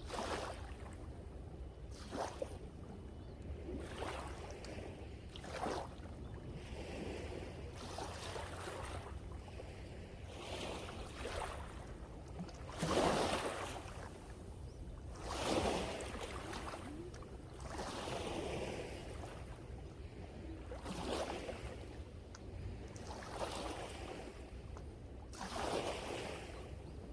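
Sea waves breaking and washing up the shore in a surge every two to three seconds, the loudest about halfway through, over a steady low rumble of wind on the microphone.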